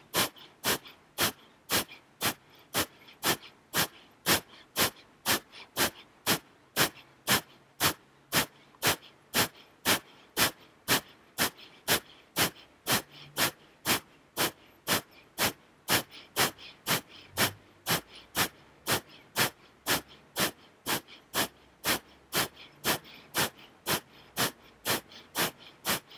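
Kapalabhati (skull-shining breath): sharp, forceful exhales snapped out through the nose in a steady rhythm, a little under two a second, with near quiet between them.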